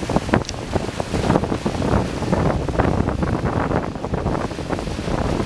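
Wind buffeting the microphone over the churning wake of a boat under way, with its outboard motor running as a steady low hum underneath.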